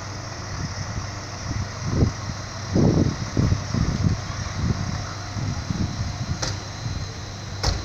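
Steady idling hum of trains standing at the station platform, with wind buffeting the microphone in uneven low gusts. Two sharp clicks near the end.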